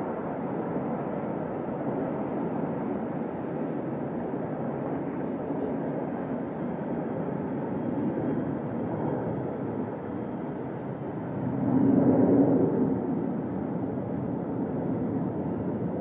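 Aircraft engine noise overhead: a steady rushing drone that swells briefly about twelve seconds in.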